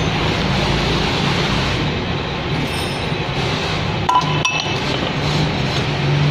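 Steel hand tools clinking against a metal lathe, with a sharp ringing clink a little after four seconds in, over a steady mechanical noise.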